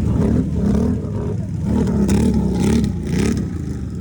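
Can-Am Outlander ATV engine revving up and down, its pitch rising and falling several times, with a few short hissing bursts in the second half.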